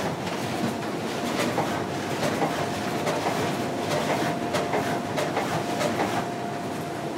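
Booklet production line running: steady mechanical clatter with irregular sharp clicks and a faint steady whine, from the saddle-stitching line's conveyor and stacker and the packing robot handling brochure stacks.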